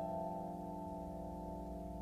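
Soft piano music: a held chord slowly fading away, with no new notes struck.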